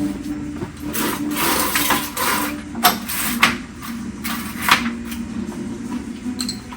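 Metal dryer parts being handled and pulled loose during disassembly: irregular scraping rushes and several sharp clanks.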